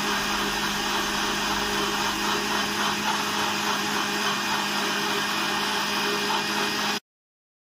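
Electric blender running steadily at full speed, puréeing grapes into juice in a plastic jar. It cuts off suddenly near the end.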